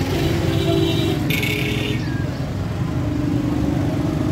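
Busy street traffic: the engines of auto-rickshaws and motorcycles running close by under a steady low rumble. About a second in there is a brief high, buzzing sound that lasts well under a second.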